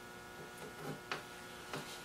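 A wooden dowel being pressed into a drilled hole in a table apron by hand, giving a few faint clicks and rubs, over a steady electrical hum.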